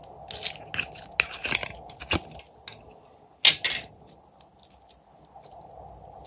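Green slime peeling out of a flexible plastic mold and being squeezed in the hands: a quick run of sticky crackles and clicks, then one loud pop about three and a half seconds in, fading to faint ticks as the slime is stretched.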